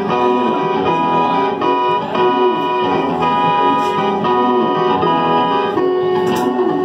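Electronic keyboard played live, sustained chords of held notes moving to a new chord about twice a second.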